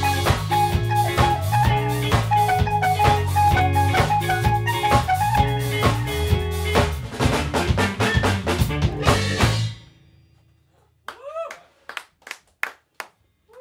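A band of drum kit, bass and electric guitar, with a keyboard or saxophone line, playing a busy funk groove that comes to a stop about ten seconds in. A few short high calls follow, each rising and falling in pitch.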